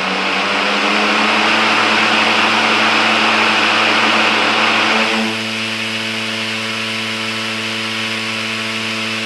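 VENTRY 20-inch electric 1.5 hp positive-pressure fan running at full speed with its guard covered by a vinyl sheet: a loud, rough rushing noise, the sound of propeller starvation as the blocked propeller is starved of air. About five seconds in the cover is pulled off and the noise drops to a quieter, steadier hum.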